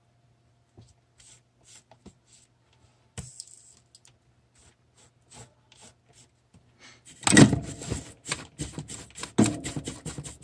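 Light clicks and taps of small objects being handled, then, about seven seconds in, a few seconds of loud, rapid rubbing and scraping close to the microphone.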